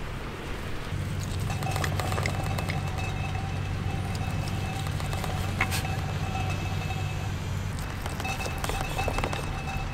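A low steady rumble, such as a vehicle running, starting about a second in, with scattered light clicks and a thin steady high tone over most of it that breaks off briefly near the end.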